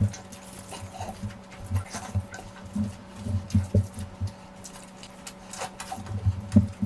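Close-miked eating of curry and rice: irregular wet chewing and mouth smacks, with short clicks and soft low thuds, busier near the end.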